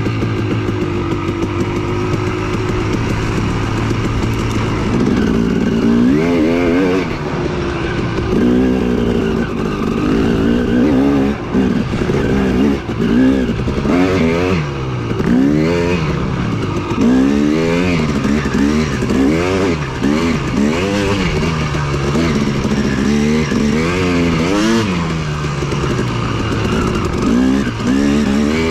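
Yamaha WR450F single-cylinder four-stroke dirt bike engine running on the trail, fairly steady at first, then revving up and dropping back again and again every second or two as the throttle is worked.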